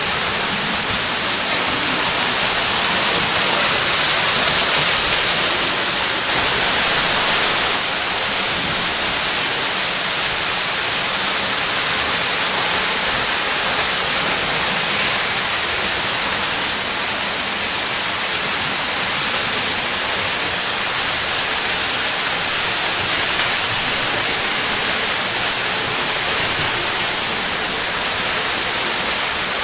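O gauge three-rail toy trains running on the layout: a steady rushing hiss of wheels and motors on metal track, swelling slightly a few seconds in.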